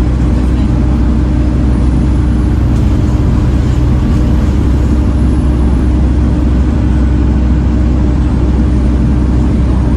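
Volvo B7TL bus's seven-litre six-cylinder engine running steadily under way, a loud, even low drone with a steady hum. A faint high whine rises and falls slowly in pitch above it.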